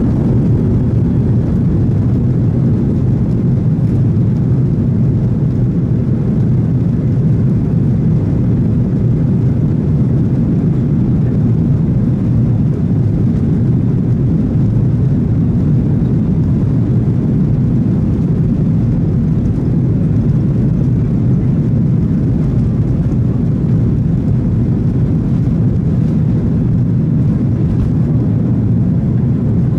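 Boeing 737-800's CFM56-7B jet engines at takeoff thrust, heard inside the cabin from a seat over the wing: a loud, steady low roar as the jet runs down the runway toward liftoff.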